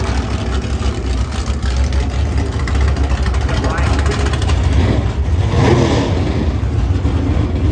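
Super Gas drag car's V8 engine idling with a steady low rumble.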